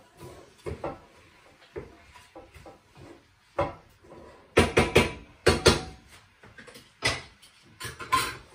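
Kitchen clatter of pots, lids and utensils being handled at the stove: scattered sharp knocks, a quick run of several about halfway through and two more near the end.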